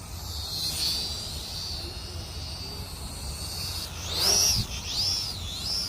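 Syma X440 mini quadcopter's motors and propellers whining high, the pitch swinging up and down several times in the second half as the throttle is worked.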